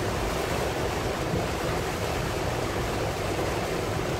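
Heavy rain hitting a car's windshield and roof, heard from inside the moving car as a steady, dense hiss.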